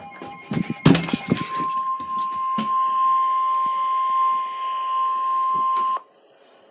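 Weather radio's 1050 Hz warning alert tone sounding steadily, then cutting off suddenly near the end. About a second in, loud bangs and a clattering rattle from a door being kicked cut across the tone.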